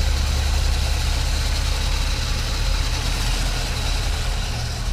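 1956 Dodge Sierra wagon's 315 cubic-inch V8 idling steadily with a low, even hum, whisper quiet.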